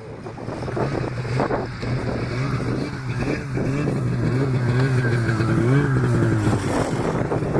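Snowmobile engine running, its pitch wavering up and down with the throttle over a steady low hum.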